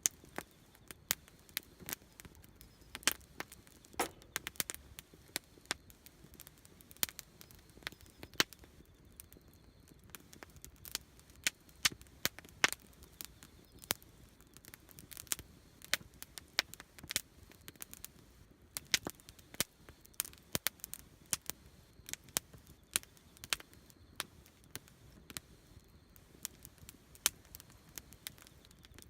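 Wood campfire crackling: irregular sharp pops and snaps, several a second, over a faint steady hiss.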